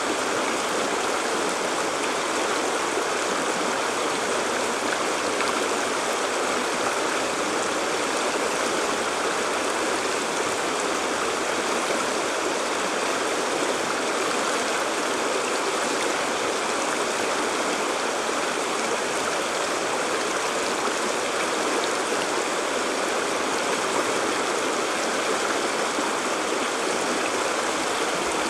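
Shallow stream water rushing and splashing over and around rocks, a steady rush without a break.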